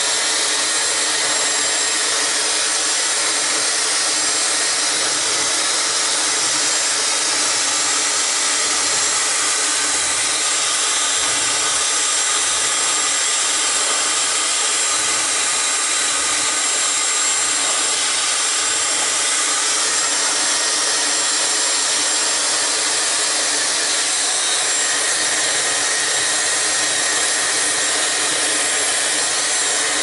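Dyson Supersonic hair dryer running steadily, a constant rush of air with a faint high steady whine.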